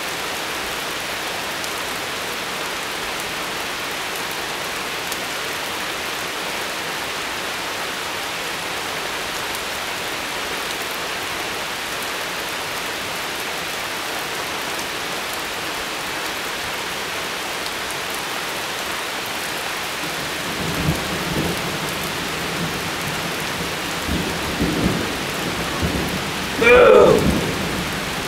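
Steady rain hissing, with thunder starting to rumble about two-thirds of the way in, coming in uneven surges and loudest just before the end.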